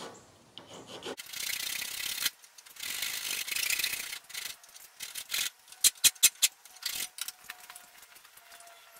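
Hand file rasping across a small annealed steel touch-mark stamp clamped in a bench vise, two long strokes sharpening the edges of the stamp's letter. Then several sharp metallic clicks and knocks.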